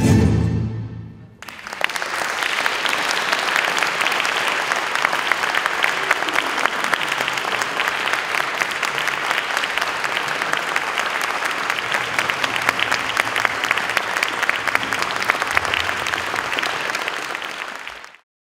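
The live tango band's last chord dies away, then a crowd applauds steadily. The applause fades out near the end.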